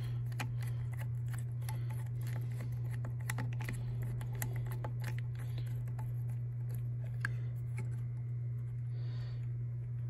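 Screwdriver turning out a screw on the float switch of a Zoeller M53 sump pump: many small, scattered metal clicks and scrapes over a steady low hum.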